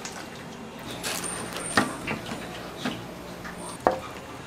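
Raw chicken drumsticks being handled and mixed in a stainless steel bowl, with soft wet shuffling and a few sharp knocks against the bowl about a second apart, two of them loud.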